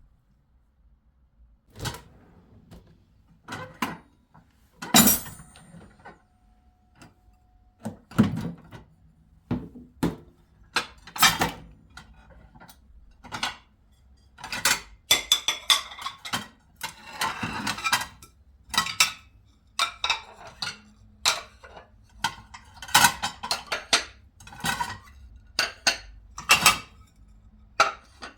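Dishes and cutlery being handled: irregular clinks, knocks and clatter, coming in quicker clusters around the middle and again near the end. A brief faint beep sounds about six seconds in.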